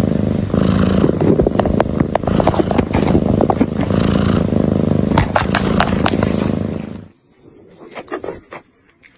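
A cat purring close to the microphone, mixed with scratching and crinkling of the paper around it. The purring stops suddenly about seven seconds in, leaving only faint rustles.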